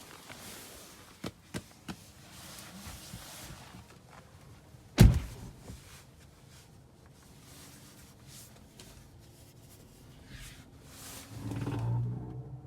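Tesla heat pump making its strange noise: a few light clicks, one sharp thunk about five seconds in, then near the end a low droning moan with several steady tones that swells up, the abnormal sound being shown to Tesla service.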